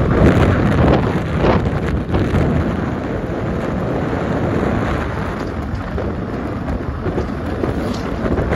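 Wind buffeting the microphone of a camera carried on a moving vehicle: a loud, rumbling rush with road and engine noise underneath, easing a little after about two seconds.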